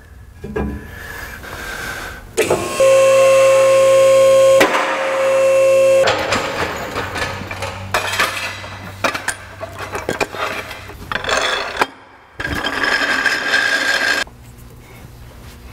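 Pneumatic shop tool on an air hose running in bursts: two back-to-back runs about three seconds in and another near the end, with metal clicking and clattering in between.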